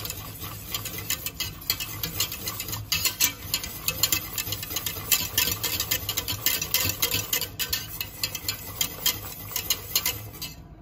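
Wire balloon whisk beating a milk-and-cream béchamel sauce in a stainless steel pot: a fast run of ticks and scrapes as the wires hit the pot's sides and bottom. It stops suddenly at the very end.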